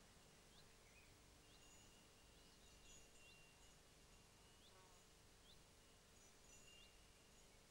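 Near silence: faint summer-meadow ambience, with small high chirps repeating about once a second over a low, steady hum.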